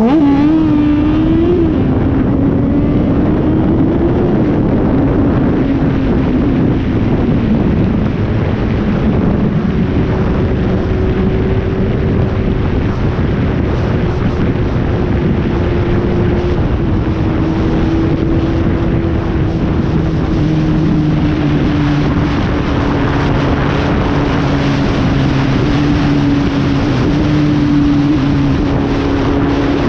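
Kawasaki inline-four motorcycle engine heard on board while riding, buried in heavy wind rush. The engine note drops just after the start, then holds at a fairly steady cruise with small shifts in pitch.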